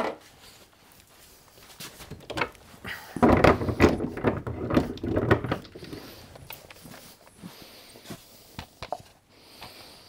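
Metal lathe chuck parts being handled: clattering and knocking, busiest from about three to six seconds in, with scattered single knocks either side.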